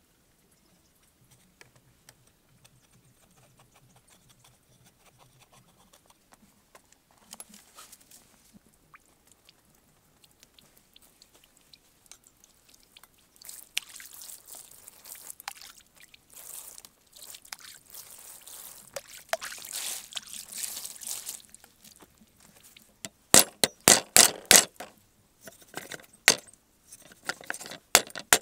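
Water sloshing and trickling for several seconds midway, then a meat cleaver chopping pork on a round wooden chopping block. The chopping comes as a quick run of sharp knocks, about five a second, the loudest sound, followed by a few more strokes near the end.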